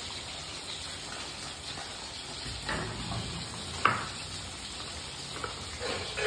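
Peeled garlic cloves and a piece of ginger dropped onto wet leaves in a steel pot: a few soft knocks and one sharp click about four seconds in.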